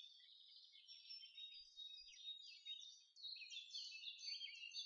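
Faint birdsong: many quick chirps and twittering notes overlapping, with a short break about three seconds in.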